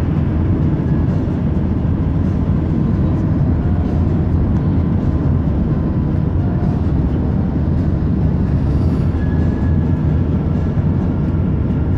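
Steady road noise heard inside a car's cabin while driving at highway speed: an even, loud low rumble of tyres and engine with no breaks.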